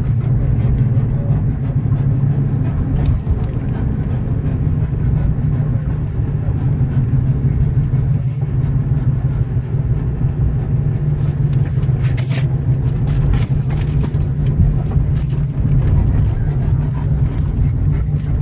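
Steady low rumble of engine and road noise heard inside the cabin of a Dodge SUV on the move, with a few faint clicks in the second half.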